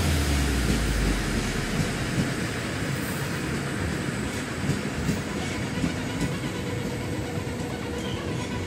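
Deutsche Bahn Intercity coaches rolling past: a steady rumble of wheels on the rails, with a few sharp clicks near the end.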